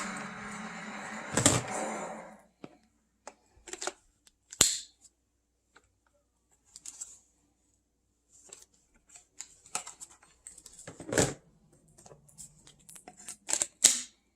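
Handling of the cordless stick vacuum's parts and packaging: a rustle lasting about two seconds at the start, then scattered clicks, taps and short rustles, with a loud click about eleven seconds in.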